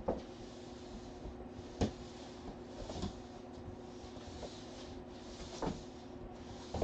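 Kittens playing, making about five scattered knocks and bumps, the sharpest about two seconds in, over a steady low hum.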